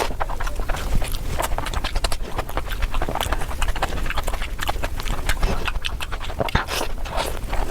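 Close-miked chewing and lip-smacking of someone eating mutton curry: a dense, irregular run of wet clicks and smacks.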